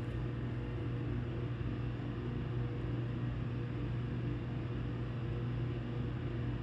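Steady low hum with a faint even hiss, unchanging throughout, like a machine running in the room.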